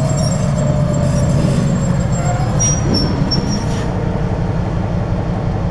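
Diesel switcher locomotive running as it slowly pulls a cut of boxcars, its engine droning steadily. A few brief high wheel squeals come about three seconds in.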